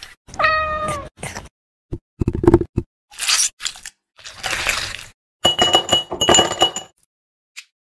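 Glassware handling while drinks are made: clinks on a glass tumbler, dull thuds as a muddler crushes cherries in the glass, and ice cubes clattering into the glass with a ringing clink. A short pitched squeak that falls at its end comes about half a second in.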